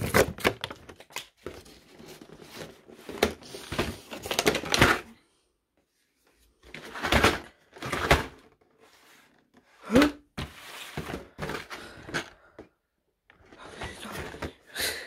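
Cardboard advent calendars being handled and moved: irregular bursts of rustling, scraping and light knocks of card, broken by two short pauses.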